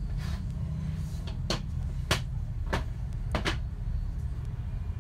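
About five sharp clicks and knocks of hard plastic as the reassembled Braun citrus juicer base is handled and tested, spread over a couple of seconds, over a low steady hum.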